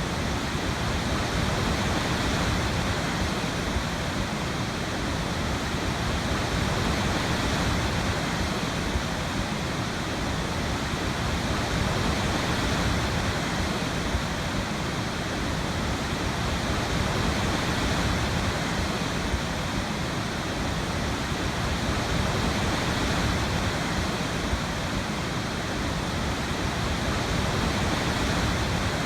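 Waterfall: a steady, even rush of falling water with no breaks or separate events.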